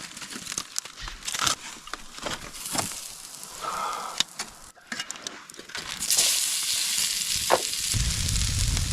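Tomahawk steak frying: scattered crackles and clicks, then a loud, steady sizzle from about six seconds in as the meat meets the hot cooking surface. A low rumble joins near the end.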